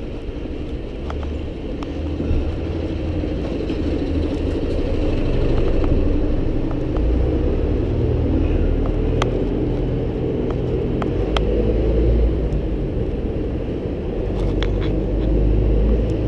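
Wind buffeting the microphone and road noise while riding a bike along a city street, a steady low rumble that swells and eases, with a few sharp clicks scattered through.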